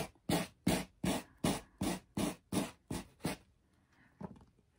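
Quick back-and-forth strokes of a 220-grit sanding block along a board's edge, about three a second, sanding off the overhanging decoupaged paper napkin. The strokes stop a little over three seconds in.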